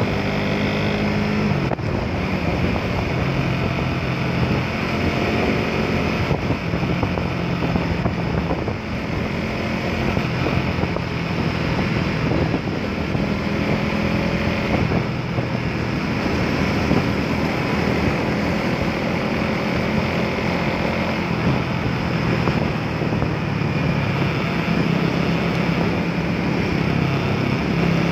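Suzuki Raider 150 Fi's single-cylinder four-stroke engine running while riding, its note rising and falling with the throttle, with wind buffeting the microphone.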